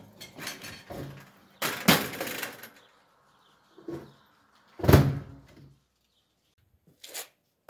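A bicycle tipping over from a wall onto a dirt path, landing with a clatter about two seconds in. A louder, heavier thump follows about five seconds in, with a few smaller knocks in between.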